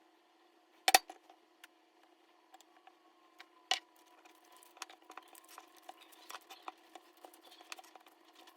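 Light clicks and taps of small household objects being handled, the sharpest about a second in and another near four seconds, with a run of smaller taps after that, over a steady low hum.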